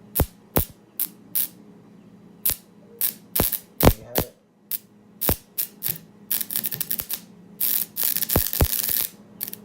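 Modified microwave-oven transformer humming on mains power, with irregular sharp clicks throughout and a dense crackle lasting about a second and a half near the end.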